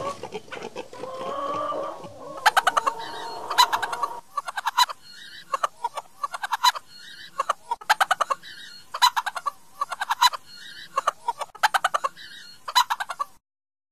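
Chickens clucking. From about four seconds in, one short phrase of rapid clucks ending in a call repeats about once a second as an edited loop, then cuts off suddenly near the end.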